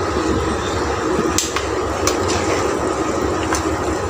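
A spoon tapping and scraping against cookware as date paste is added to sugar syrup: a few sharp taps over a steady low hum.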